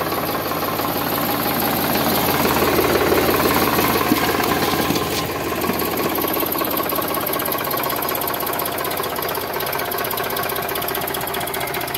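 Sonalika DI-745 III tractor's three-cylinder diesel engine running at a steady clattering idle, its note rising slightly a few seconds in and then settling back.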